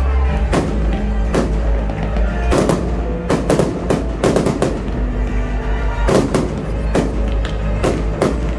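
Aerial fireworks bursting in a quick, irregular series of sharp bangs over the show's accompanying music.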